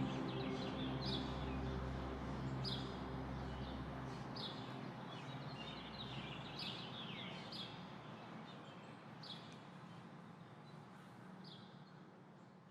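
Small birds giving short, repeated high chirps about once a second over a steady background rush. Low music tones fade out in the first few seconds, and the whole soundscape fades down toward the end.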